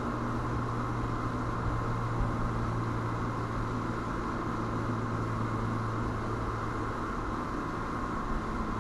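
A steady low hum over a constant hiss, with no clear events apart from a couple of faint knocks.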